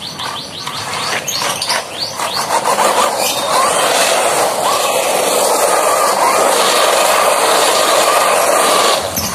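Subotech BG1513 1/12-scale RC buggy driving over wet asphalt: its electric motor whine, uneven at first, becomes a steady whine from about three seconds in, over the hiss of tyres in water.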